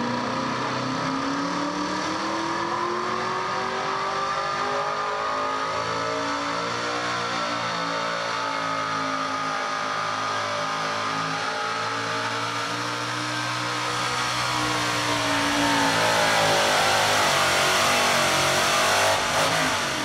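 Chevrolet S-10 mini two-wheel-drive pulling truck's engine at high revs under load as it drags the pulling sled down the dirt track. The pitch climbs over the first several seconds, holds high with some wavering, then drops off in the last few seconds as the pull ends.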